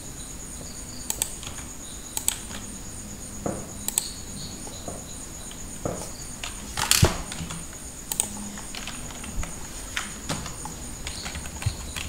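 Scattered clicks of a computer mouse and keyboard, irregularly spaced, with the sharpest click about seven seconds in, over a steady faint hiss with a thin high whine.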